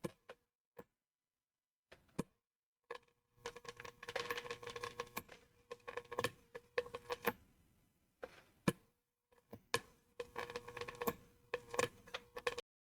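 Irregular clicking and clattering of small hard objects being handled, in a few scattered taps and then two dense runs of rapid clicks, stopping abruptly near the end.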